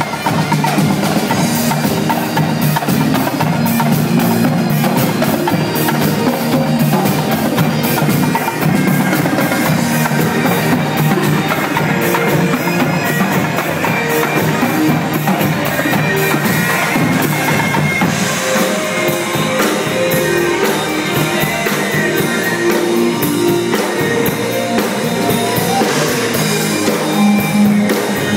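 Percussion group drumming a fast, dense rhythm with sticks on sets of tenor drums.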